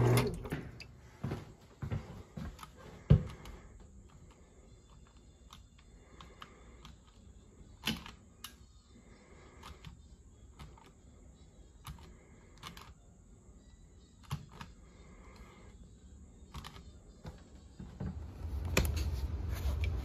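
Condensate pump motor hum cutting off right at the start, then quiet handling with scattered light clicks and taps and one louder thump about three seconds in; a low rumble comes in near the end.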